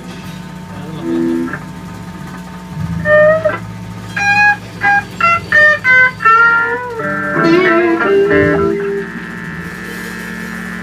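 Music: a guitar plays a run of short melodic notes over a sustained low backing.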